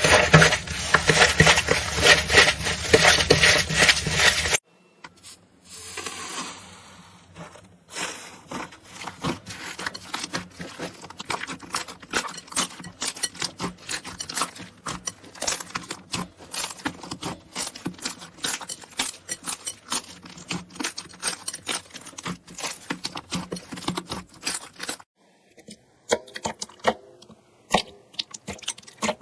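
Close-miked crunching and scraping: dense runs of small crackling clicks, loudest in the first few seconds, breaking off abruptly at cuts a few seconds in, around 8 seconds and near the end.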